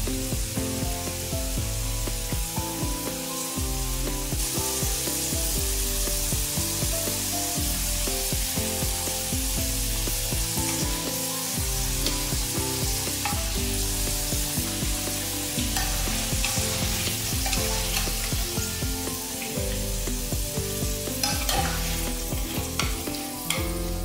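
Battered potato sticks deep-frying in hot oil: a steady sizzling hiss, over background music. A few light clicks near the end.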